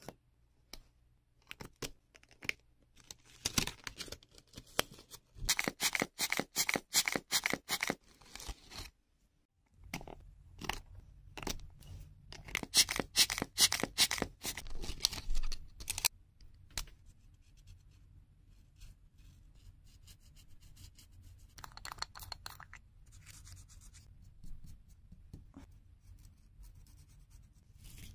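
Toy airbrush's pleated squeeze bellows pumped rapidly, a fast run of puffing clicks at about five a second with an airy hiss under them. It happens twice, with lighter tapping and rubbing of the plastic toy and doll between and after, and a short hiss about three quarters of the way through.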